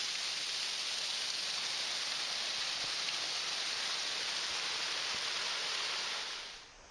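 Small waterfall pouring from a stone culvert onto rocks: a steady hiss of falling, splashing water that drops away sharply near the end.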